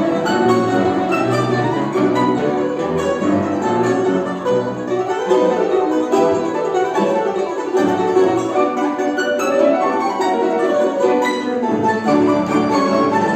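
Instrumental ensemble music led by plucked strings, played in quick, dense runs of notes, with bowed strings underneath.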